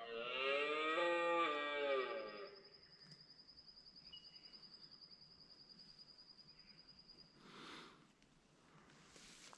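A red deer roar, loud and close, lasting about two and a half seconds; its pitch dips and then rises a little before it trails off.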